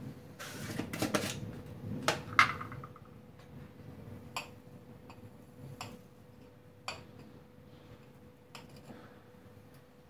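Granulated sugar poured from a drinking glass onto white mulberries in a stainless steel pot: a hiss of pouring sugar for about a second near the start, then a few sharp clinks, the loudest about two and a half seconds in, and scattered light taps after. A faint steady hum lies underneath.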